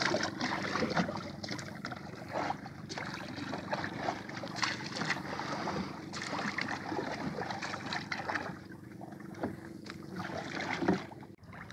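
Water lapping and splashing against a small wooden outrigger boat, with scattered knocks on the hull and a steady low hum underneath.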